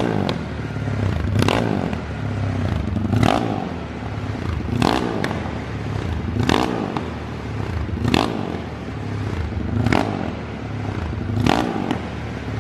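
Honda Today's single-cylinder four-stroke motorcycle engine idling steadily while warming up after its first cold start of the day. A sharp clack recurs about every second and a half over the idle.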